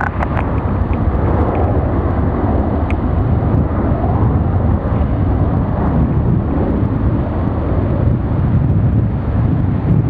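Jet engines of a twin-engine airliner, a Boeing 767, at takeoff thrust during the takeoff roll: a loud, steady rumble, mixed with strong wind buffeting the microphone.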